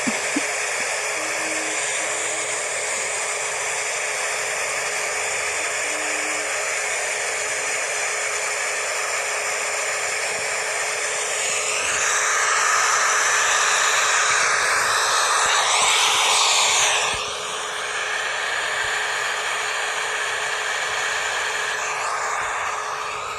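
Hair dryer running steadily: a constant rush of air with a steady hum under it. It gets louder for about five seconds midway through, then settles back.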